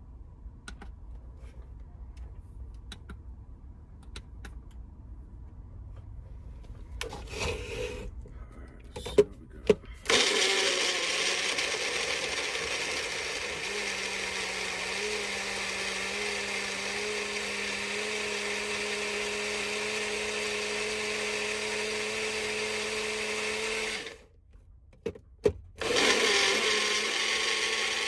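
Electric blender blending a smoothie: two sharp clicks, then the motor starts about ten seconds in and runs loud and steady. It cuts off a little before the end, two clicks follow, and it starts running again.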